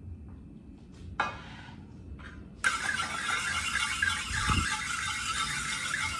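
Hot oil in a frying pan on a portable gas stove starts sizzling abruptly about two and a half seconds in and keeps up a loud, steady hiss. Before that there is a short clink of the spatula against the pan.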